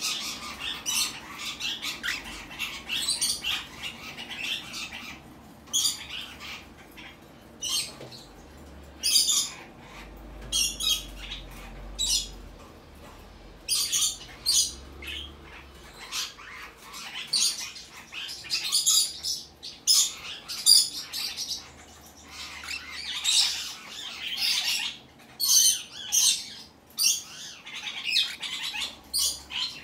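Young cockatiel calling over and over in short, harsh, high-pitched squawks that come in irregular clusters with brief pauses.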